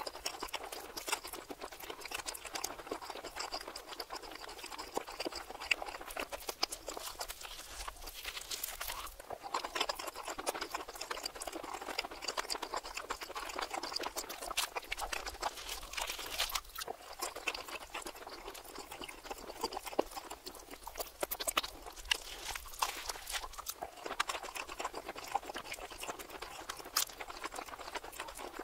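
Close-miked chewing of a cheesy Philly cheesesteak, played in reverse: a dense, steady run of mouth clicks and smacks.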